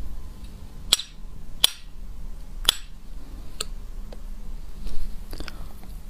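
Metal spoon clinking against a glass mug as it stirs: a handful of sharp, ringing clinks, roughly a second apart.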